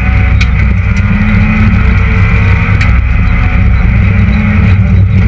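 Citroën Saxo VTS rally car's four-cylinder engine running loud and fairly steady under power, heard from inside the cabin, with a few sharp knocks at about half a second, one second and three seconds in.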